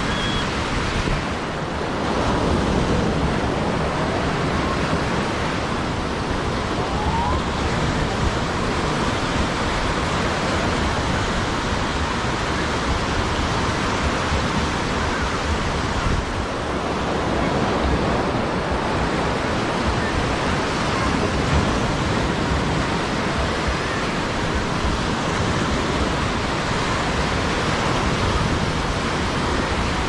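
Steady wash of waves on the beach with wind on the microphone, an even, unbroken rush of noise.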